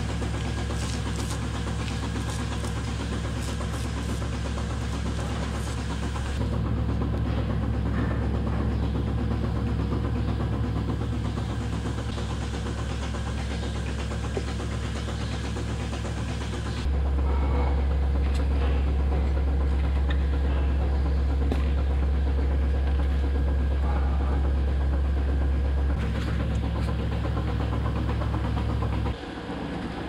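Steady mechanical hum of milking-parlour equipment, the milking system's vacuum pump and machinery, running throughout. The hum changes level in steps several times.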